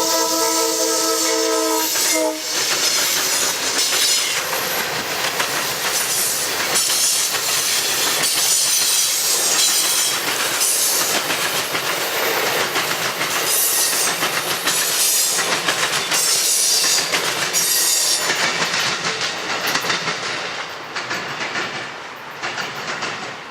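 Amtrak passenger train led by GE P42DC locomotives: the locomotive's air horn sounds a multi-note chord that cuts off about two seconds in. Then the train rolls past at speed, wheels clicking over rail joints, and the noise fades near the end.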